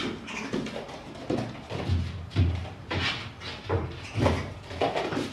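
A run of dull thumps and knocks with scuffling: white tiger cubs wrestling and clambering on a wooden floor and against a wooden box.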